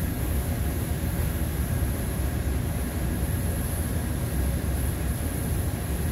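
Steady low roar with a constant high hiss: the airflow of a paint spray booth with a compressed-air spray gun in use.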